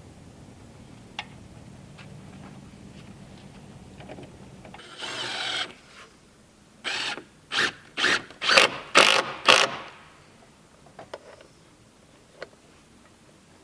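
A woodworking tool at work: one longer burst about five seconds in, then six short, evenly spaced bursts about half a second apart, over a low hum that stops as the bursts begin.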